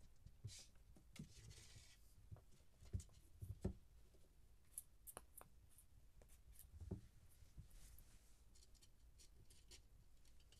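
Faint scuffling of kittens at play on carpet: scattered light taps and scratches, a brief scratchy rustle about a second in, and a few soft thumps around three to four seconds and again near seven seconds.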